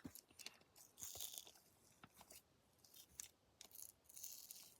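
Faint, scattered soft crackles and squishes of a cotton candy snow slime being pressed and stretched by hand.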